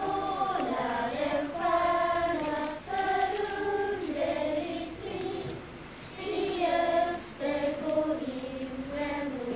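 Lucia procession choir of girls singing a Lucia song together, a single melody moving in held notes.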